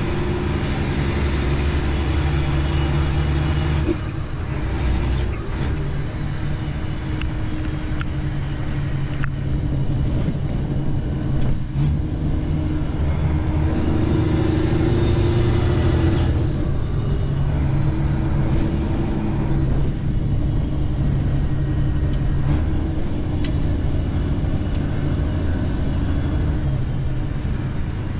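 Semi truck's diesel engine heard from inside the cab while driving and working through the gears. The engine note breaks and changes about four seconds in and again near ten seconds. A high whine rises with it as the truck builds speed, early on and again past the middle.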